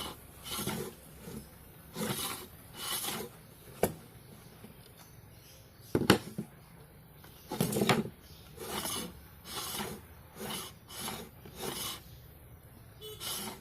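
Repeated rasping strokes on wood, each about half a second long and coming roughly once a second, like hand sanding or filing, with two sharp knocks near the middle.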